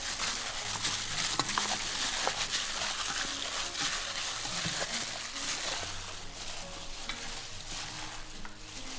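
A plastic-gloved hand mixing pieces of snakehead fish with seasonings and sweet potato starch in a stainless steel bowl: a continuous wet rustling with many small clicks.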